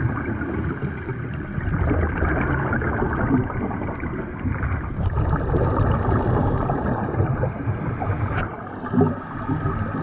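Muffled underwater noise of a scuba dive: water churning against the camera and the gurgle of divers' exhaled regulator bubbles, with a louder gush about nine seconds in.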